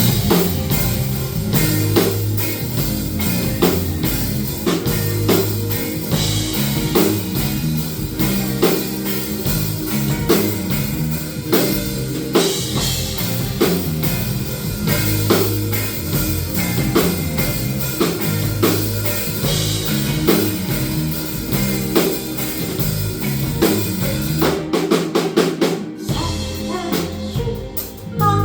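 Band music with a steady drum-kit beat of kick, snare and rimshots over a strong bass line, no singing. Near the end the bass and kick drop out for about a second before the full band comes back in.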